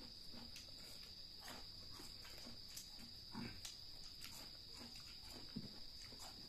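Steady high-pitched chirring of crickets, with scattered soft crunches and clicks from eating chicken feet by hand.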